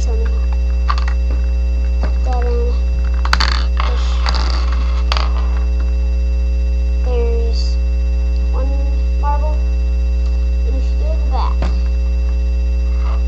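Loud, steady electrical mains hum throughout, with a cluster of light clicks about three to five seconds in and a few faint, short pitched sounds over it.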